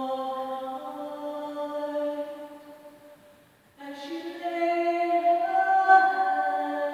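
A single unaccompanied voice singing long, held notes that ring on in a reverberant building. About three seconds in, a phrase dies away into the echo, and a new phrase starts just before the four-second mark.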